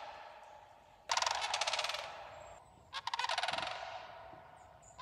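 Sandhill cranes calling: two rolling, rattling calls, the first about a second in and the second about three seconds in, each fading away over a second or so.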